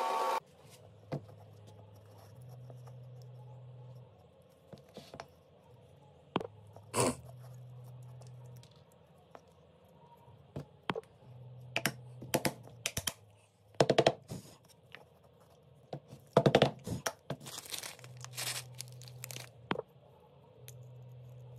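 A bench belt sander's noise cuts off just after the start. Then scattered knocks, scrapes and crackles of bark-covered wooden pieces being handled and fitted together, with a few louder clatters, the loudest near the middle and about two-thirds of the way in.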